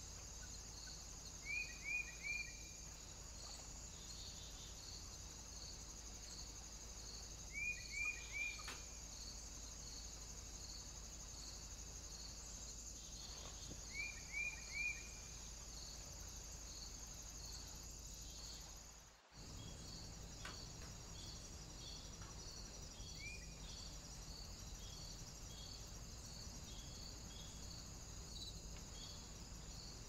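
Crickets or similar insects keeping up a steady high chirring, with a chirp repeating about once a second. A small bird calls over it three times with a quick run of three short chirps, and later once with a single chirp; these are the loudest sounds. The background cuts out for an instant a little past the middle.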